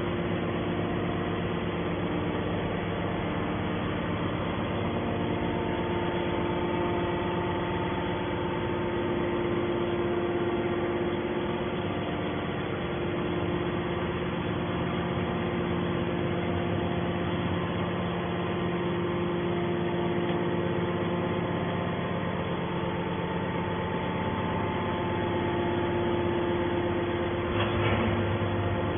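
Scrap-metal baler running steadily, a machine hum with several held tones, with a short rattle near the end.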